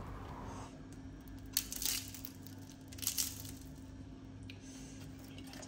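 Quiet room tone with a steady low hum, and two brief faint noises about a second and a half apart.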